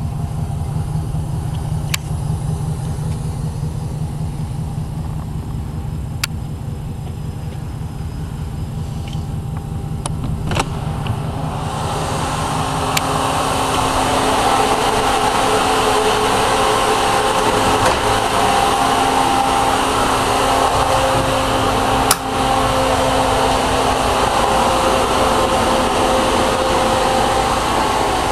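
The Ford E-350's 5.4-litre V8 idling with a low, steady rumble, with a few light clicks. About twelve seconds in, a steady blowing fan with several humming tones takes over: the box's rear heat and AC blower running.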